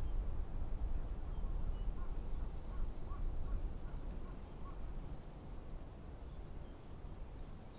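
An unsteady low rumble of wind in the open air, easing slightly toward the end. Several faint, short distant bird calls come about two to four seconds in.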